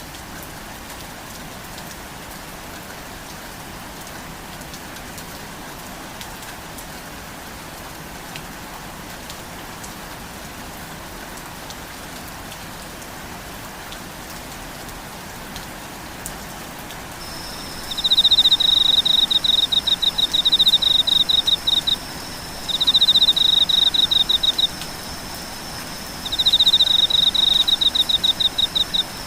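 Steady rain falling. A little past halfway a steady high whine starts, and then a loud, high-pitched, rapidly pulsing trill comes in three bouts of a few seconds each, louder than the rain.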